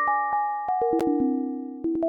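Monkeytype's 'wholetone' typing sound: each keystroke triggers a synthesized bell-like note from a whole-tone scale, giving a quick, uneven run of overlapping notes of different pitches, about five a second, that follows the typing rhythm.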